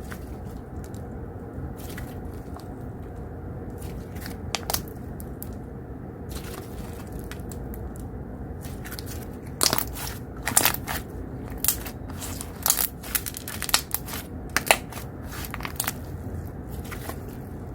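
Slime being pressed and squeezed by hand, giving a run of sharp crackles and pops in the middle. Under it runs a steady low background noise from an open window.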